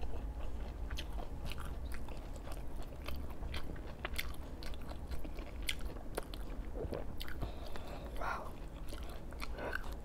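A person chewing and eating up close to the microphone, with irregular clicks and smacks of the mouth over a low steady hum. A few faint short vocal sounds come near the end.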